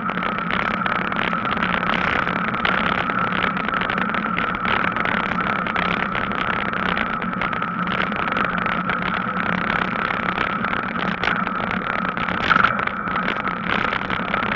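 Continuous noise of an e-bike being ridden on a tarmac path: tyre rumble and wind on the microphone with a steady hum under it. There is one brief louder knock a little past twelve seconds in.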